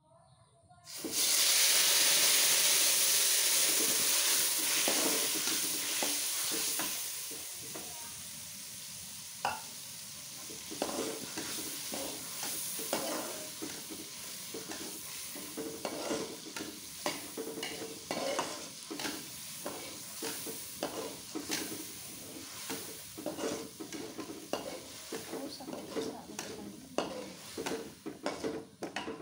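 Ground spice paste hitting hot oil in a wok: a loud sizzle starts about a second in and dies down over several seconds into a quieter steady frying. A metal spatula then stirs and scrapes the paste against the wok, with many short scrapes and knocks.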